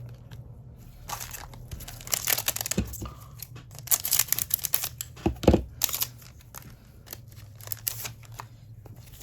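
Crinkling and tearing of a foil trading-card pack being opened and handled, in irregular crackly bursts, with a couple of soft knocks.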